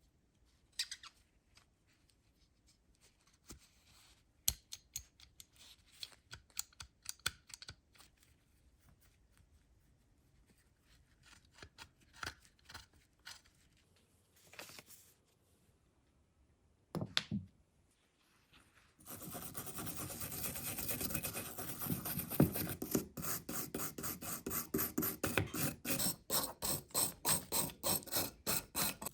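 Scattered clicks and light handling of metal parts, then, about two-thirds of the way in, steady back-and-forth scraping at about two to three strokes a second, as rust is scrubbed off the old Nagant revolver's metal by hand.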